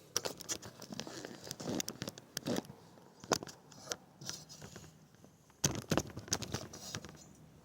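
Handling noise: scattered clicks, taps and rustling as things are moved about by hand, in two spells with a short lull about five seconds in.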